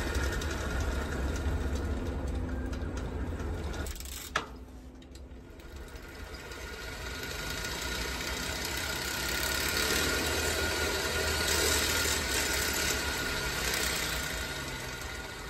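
Homemade bicycle automatic gear-shifter running: the stepped cone pulley and drive spin with a steady mechanical whirr and rattle. A sharp click comes about four seconds in, the sound drops away, then it slowly builds back up and eases off near the end.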